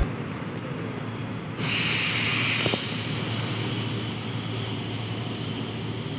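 Steady low engine hum and street noise around an idling bus. About a second and a half in, a hiss starts and lasts about a second.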